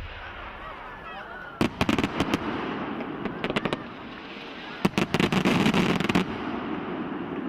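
Fireworks crackling in three quick clusters of many sharp pops, the longest near the end.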